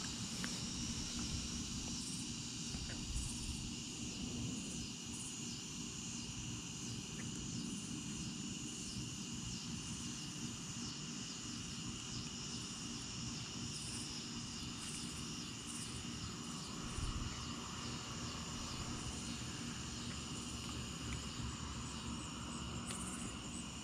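A steady evening chorus of crickets and other insects, with a low rumble underneath.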